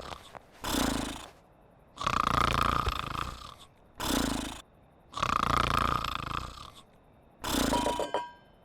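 Cartoon sheep snoring in a steady rhythm: a long snore of about a second and a half, then a shorter, lower one, the pair repeating about every three seconds.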